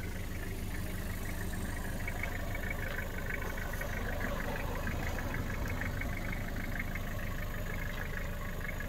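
Toyota Dyna's 3.0-litre 5L-E four-cylinder diesel engine idling steadily, with a light, rapid, even ticking over the low drone.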